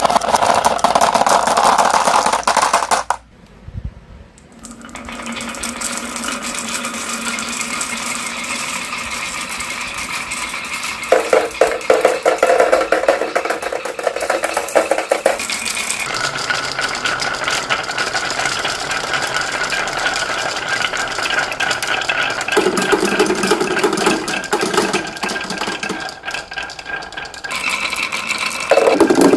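Many marbles rolling and clattering down marble run tracks: a dense, continuous rattle of small clicks, with a brief quiet dip about three seconds in and several abrupt changes in the sound as the scene cuts between runs.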